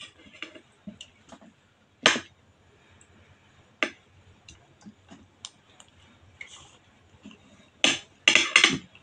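Mouth sounds of a person eating fish and rice: scattered wet clicks and lip smacks while chewing, with sharper smacks about two and four seconds in and a quick run of them near the end.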